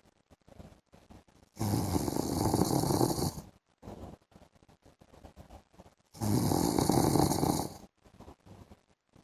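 A man snoring in his sleep: two long snores, each lasting nearly two seconds and about four and a half seconds apart, with near quiet between them.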